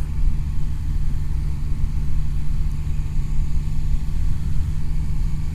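Motorcycle engine running at a steady speed, a low rumble with an unchanging engine note.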